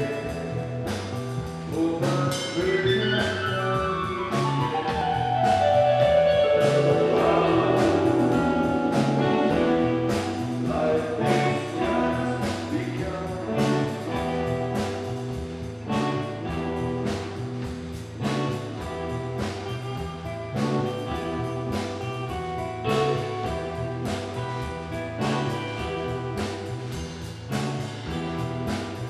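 Live rock band playing, the drums keeping a steady beat under held notes, with a long falling sweep in pitch during the first ten seconds; a man sings into the microphone.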